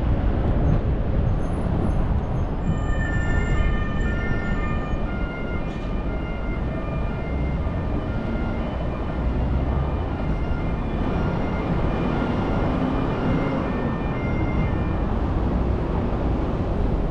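Steady city traffic noise, with a distant siren sounding as a series of stepped high tones through most of it.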